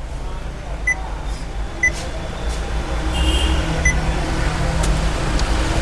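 Touch-feedback beeps from an aftermarket Android touchscreen car stereo as its screen is tapped: three short high beeps, the last about two seconds after the second, over a steady low hum.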